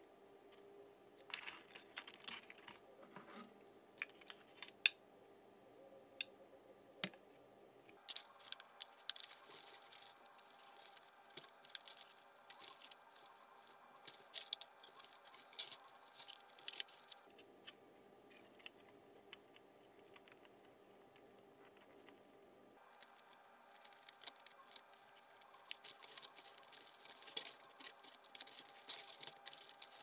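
Light clicks, taps and rustling of hands handling servo leads, plugging small plastic connectors into an RC receiver and pushing wires into a foam-board fuselage, over a faint steady hum.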